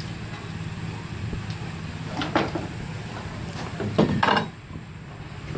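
A steady low hum with two brief knocks, about two seconds in and about four seconds in; the hum drops away shortly after the second knock.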